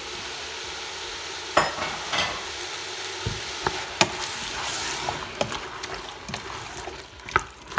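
A wooden spoon stirring chopped tomatoes into hot sweated vegetables in a stainless steel pot, over a steady sizzle, with a few scrapes and knocks of the spoon against the pot.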